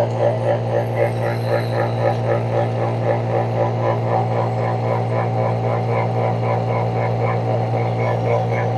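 Vacuum pump running steadily while it evacuates a refrigerator's sealed system: a constant hum with a fast, even pulsing of about five beats a second.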